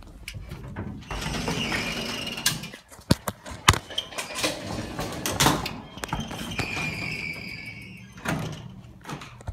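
Manual elevator doors and gate being slid open and shut: rolling, scraping runs with a faint squeal, several sharp metal clacks in between, and a thump near the end.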